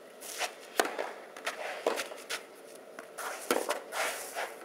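Tennis racket hitting the ball in a rally, sharp pops with the loudest about a second in as the serve is struck and more hits following, amid shoes scuffing on the clay court.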